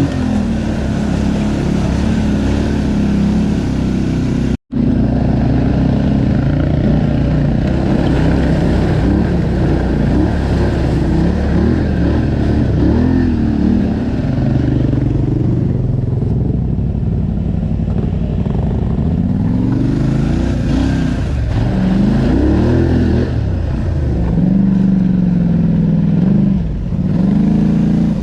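ATV engine running with the revs repeatedly rising and falling under throttle. The sound cuts out completely for a moment about four and a half seconds in.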